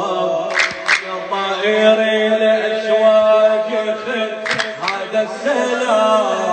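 A man singing an Arabic Shia religious chant into a handheld microphone, drawing out long, ornamented notes that bend up and down.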